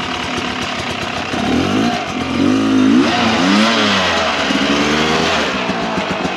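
Dirt bike engine running, then revved up and down several times in quick swells from about a second and a half in, easing off near the end.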